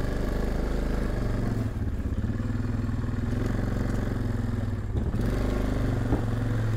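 Yamaha Kodiak 450 ATV's single-cylinder engine idling steadily at an even pitch.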